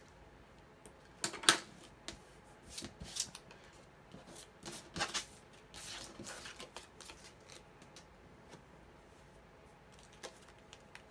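Cardstock pieces being handled on a cutting mat, with several short rasping strokes of an adhesive tape runner as a paper image piece is given adhesive and stuck down. The sharpest stroke comes about a second and a half in, and the last few seconds hold only faint paper touches.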